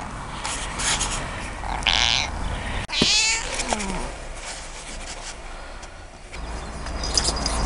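A domestic cat meowing: one loud, long call about three seconds in that falls in pitch, with a shorter, hoarse call before it.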